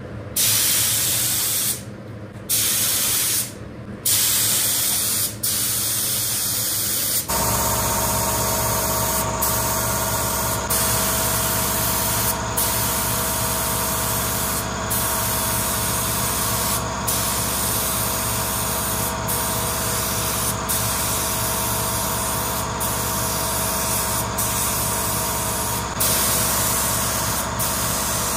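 Gravity-feed air spray gun hissing as clear coat is sprayed onto a carbon fiber fender, in short trigger pulls at first, then long passes with brief breaks every couple of seconds. A steady low motor hum starts about seven seconds in and runs on under the hiss.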